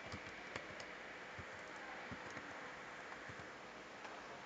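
Computer keyboard being typed on faintly, a scattering of light keystrokes over a steady background hiss.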